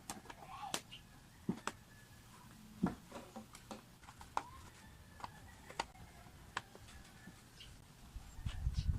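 Scattered sharp clicks and taps, about a dozen at irregular intervals, over a faint low hum, with low thumps coming in near the end.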